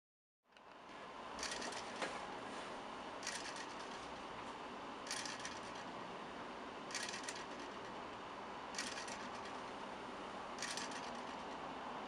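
3D-printed gear clock's drive motor being pulsed about every two seconds, each pulse giving a short burst of clicks as it kicks the balance spring and gear train, over a faint steady hiss.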